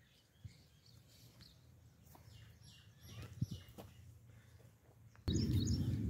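Faint, short chirps of small birds over a quiet rural background. About five seconds in, a sudden jump to a louder, steady low rush of noise.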